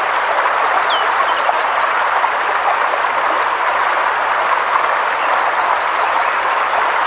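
Forest river rushing steadily, with small birds chirping over it. Twice a bird gives a quick run of about five high notes, about a second in and again about five seconds in, between short falling whistles.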